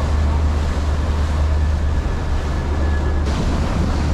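Fishing boat running steadily under way: a constant low engine drone under the rush of water past the hull, with wind on the microphone.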